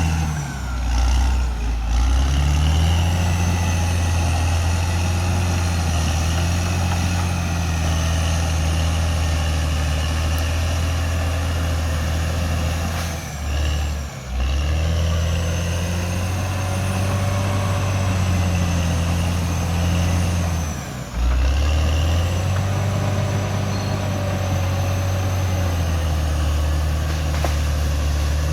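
Cat D6R XL bulldozer's diesel engine running hard with a steady low drone, its pitch dropping and picking up again about a second in, around the middle and about two-thirds of the way through.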